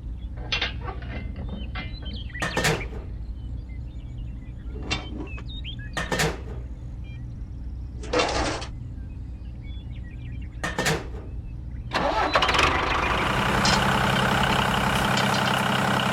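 A small engine idling with a low steady hum, with scattered short clicks and knocks. About twelve seconds in, a louder engine starts and runs steadily.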